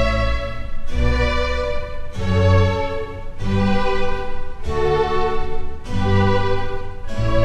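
Slow instrumental background music of bowed strings, a violin prominent over sustained low bass notes, the chords changing about once a second.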